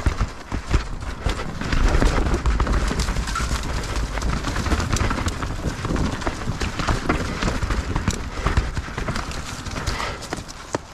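Mountain bike riding a rough trail: tyres rattling over roots and rocks, with a dense run of irregular clicks and knocks from the chain and frame. Wind rumbles on the camera's microphone underneath.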